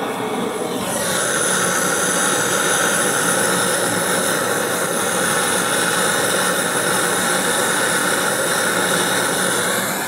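Gas brazing torch burning with a steady loud hiss while its flame heats a copper refrigerant pipe at the refrigerator compressor.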